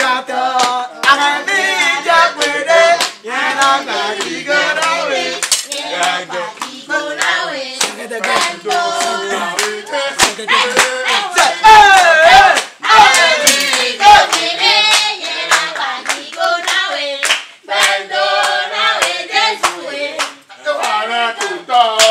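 Several voices singing a church praise song together, with hand clapping along.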